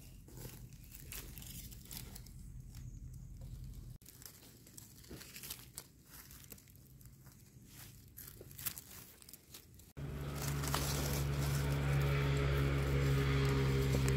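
Faint crackling and rustling of dry leaf litter being handled. About ten seconds in, a much louder steady electronic tone with several held pitches cuts in suddenly.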